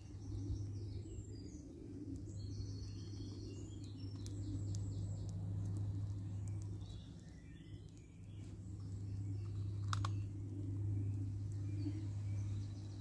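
Birds singing in woodland, short chirping phrases over a steady low rumble, with one sharp click about ten seconds in.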